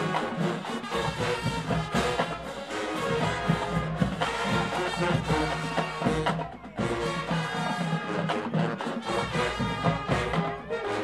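Marching band playing, its brass section of trumpets and trombones over drums, with a brief break in the sound about two-thirds of the way through.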